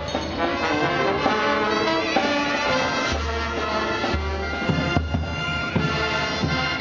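Brass band playing music for a religious procession.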